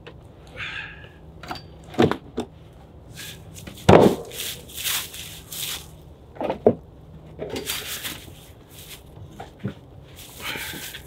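Cut logs being hauled out of a wooden hand cart and handled, knocking against the cart bed in several dull thuds, the loudest about four seconds in, with crunching footsteps in snow between them.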